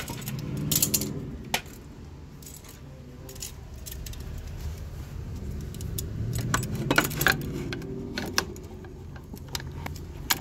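Metal hand tools clinking and knocking as they are handled under the car, in scattered clicks with a cluster about a second in and another around seven seconds in.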